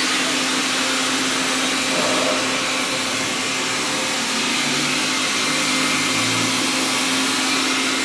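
Xiaomi Mi Robot Vacuum running: the steady whir of its suction fan and brushes, with a constant hum underneath.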